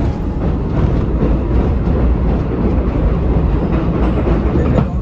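New York City subway train running along the track: a steady, loud rumble of wheels on rails with faint clicks from the rail joints.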